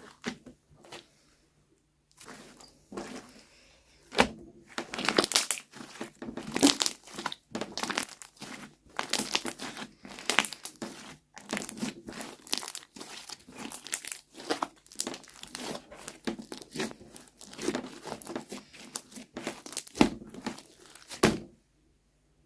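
Slime being squeezed, stretched and pulled apart by hand: a dense run of crinkling, crackling and tearing sounds that cuts off suddenly near the end.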